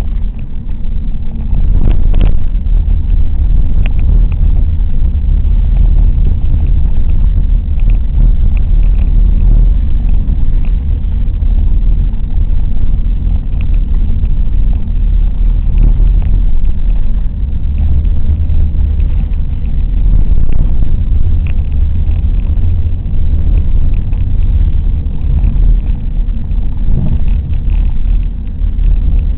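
Car driving along a narrow road, heard from inside the cabin: a loud, steady low rumble of engine and tyres, with a few faint ticks.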